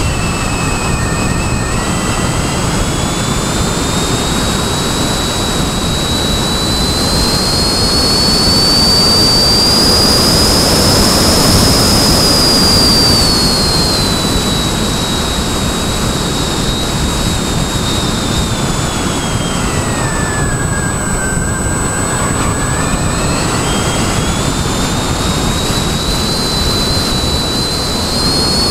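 Motor and propeller of a radio-controlled model aircraft heard from its onboard camera: a high-pitched whine that rises over the first ten seconds or so, drops steeply about twenty seconds in and climbs again near the end as the throttle changes, over loud wind rush on the microphone.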